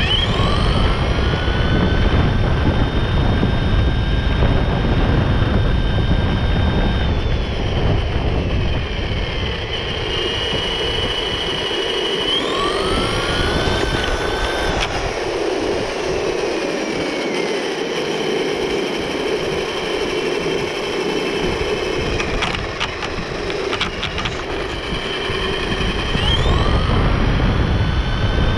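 Onboard sound of an RC buggy driving on rough asphalt. Its motor whine rises sharply in pitch as it accelerates, about three times, holds steady at speed and falls away as it slows, over a rumble of tyres on the road and wind on the microphone.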